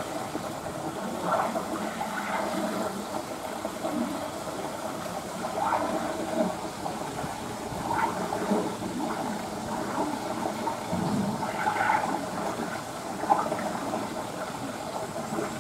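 Steady rush of running water in a beaver pool, with small irregular splashes.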